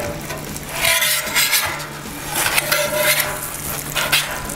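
Metal spatula scraping and sliding under a stuffed quesadilla on a hot flat top griddle, several scraping strokes over a steady sizzle of food frying on the griddle.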